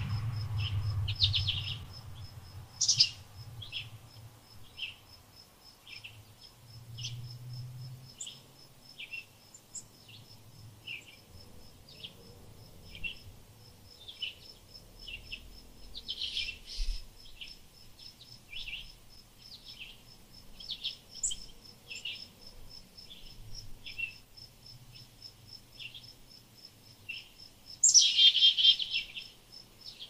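Small songbirds giving short, high chirps about once a second over a cricket's steady, rapid pulsing trill. A louder, longer burst of sound comes near the end.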